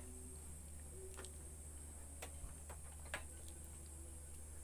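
Faint, sharp ticks about once a second over a steady low electrical hum.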